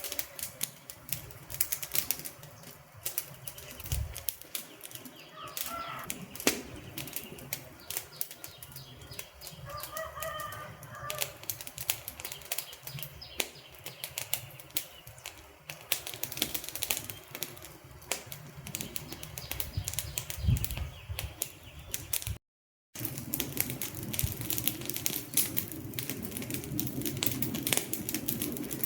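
Wood fire crackling, with many sharp irregular snaps and pops over a soft steady hiss of burning; the sound cuts out briefly about two-thirds of the way through.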